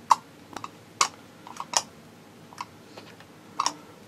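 About ten sharp, irregularly spaced clicks and taps from a resistance soldering rig being worked while it is not making electrical contact, a fault the operator puts down to a loose nut robbing the current.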